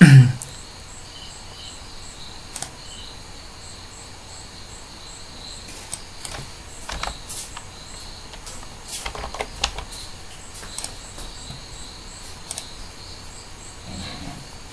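Computer keyboard typing and mouse clicks in scattered bursts, mostly in the second half, over a faint, evenly repeating chirping of crickets. A short, loud, low sound comes right at the start.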